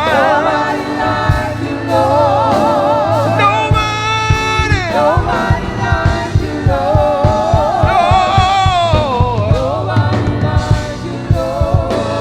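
Live gospel music: a singer holds long wordless notes with a wide vibrato, sliding down in pitch twice, over a band's accompaniment with a steady beat.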